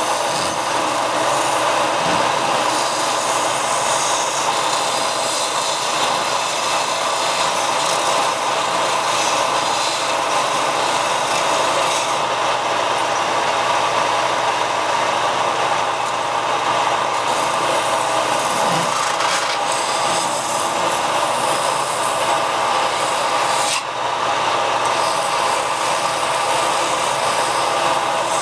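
Benchtop belt sander running steadily while a small shaped wooden piece is pressed and turned against the moving abrasive belt, the wood rubbing continuously on the sanding belt over the machine's motor.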